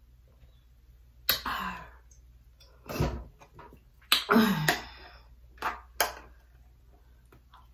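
A person's mouth and throat noises while drinking and eating, close to the microphone: a handful of short, sudden sounds. The longest and loudest, about four seconds in, has a low falling tone, like a throat-clear.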